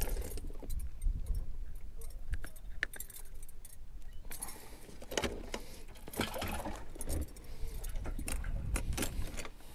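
Small clicks, clinks and crinkling from hands unhooking a crappie: a plastic bag crackling around the fish and a jig head and line being handled, in scattered irregular bursts. Low wind rumble on the microphone underneath.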